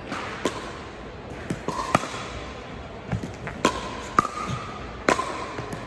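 Pickleball paddles striking a hard plastic ball during a rally, giving a string of sharp pops roughly a second apart.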